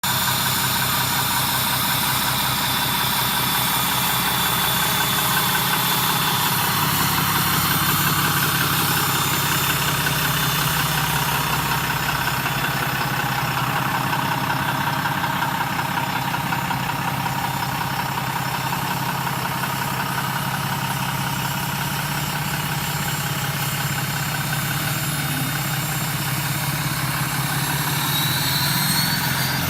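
Straight-piped 2017 Cummins 6.7 L inline-six turbodiesel idling steadily, with a high, steady turbo whistle over the diesel note. Near the end the whistle rises in pitch as the engine starts to rev.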